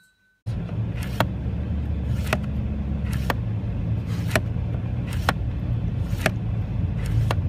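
A car running on the road: a steady low rumble, with a short sharp tick repeating about once a second, starting half a second in.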